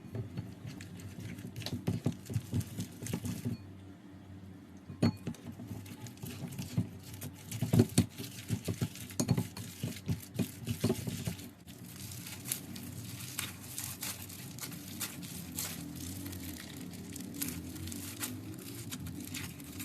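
Slime being handled and squeezed, with irregular sticky clicks and crackles that come thickest in the middle of the stretch.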